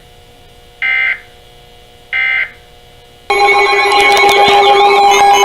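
Two short bursts of EAS digital data warble, the tail of the end-of-message code that closes a spoken severe thunderstorm warning. About three seconds in, a loud, continuous electronic tone with several pitches starts abruptly.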